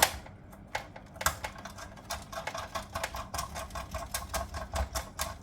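Ratchet socket wrench clicking in a rapid run as it is worked back and forth to undo a fixing.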